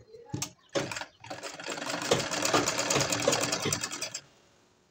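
Domestic straight-stitch sewing machine sewing a lining onto a blouse back piece. A few short clicks and a brief burst come first, then it stitches in a fast, even run of about three seconds and stops abruptly.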